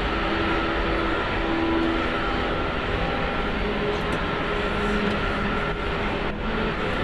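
Steady cockpit noise of an Airbus A380 taxiing: an even rush with faint steady hums, from the idling engines and the cockpit's airflow.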